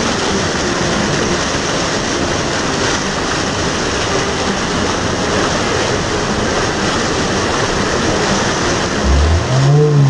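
Small waterfall cascading and splashing over rocks, heard up close as a steady, loud rush of water.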